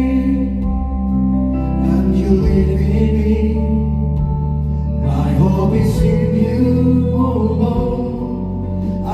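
Worship music with sustained chords and singing voices, steady and continuous.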